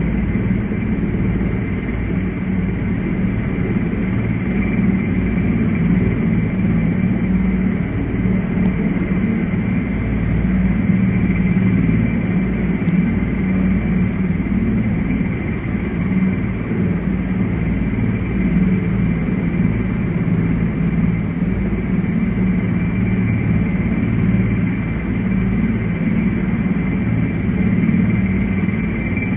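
Helicopter engine and rotor running steadily, heard from inside the cabin: a constant low drone with a thin, steady high whine over it.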